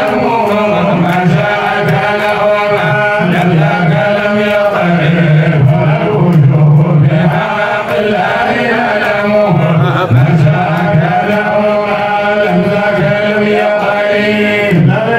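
A man's voice chanting a religious song into a microphone, in long, held melodic lines.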